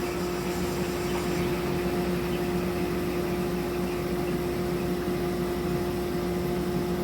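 Shopsmith running as a disc sander with dust collection attached: a steady motor hum over an even rush of air.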